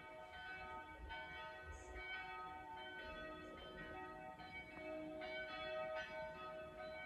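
Faint bells ringing, several pitches struck one after another, each note ringing on and overlapping the next.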